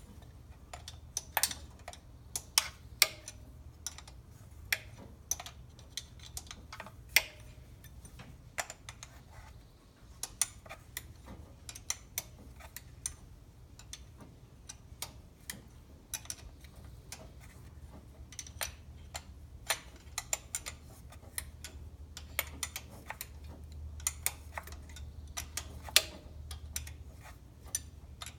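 Hand ratchet clicking in short, irregular runs as the thermostat housing bolts on a small-block Chevy 350 are run down, over a low steady hum.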